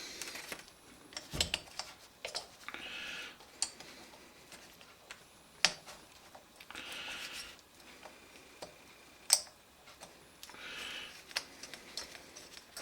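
Scattered small metal clicks and taps as the choke actuator arm is worked loose from the choke plunger on a 1983 Honda V65 Magna carburetor, with soft hissy swells about every four seconds between them.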